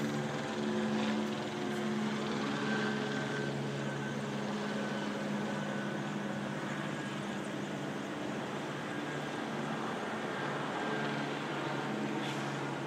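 Steady low drone of an aircraft flying overhead, a hum of several low tones that weakens after about six seconds and strengthens again near the end, over city background noise.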